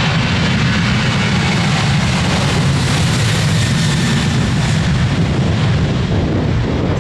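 Airliner engines running loud and steady as the aircraft passes close by, a dense even rush with a heavy low rumble.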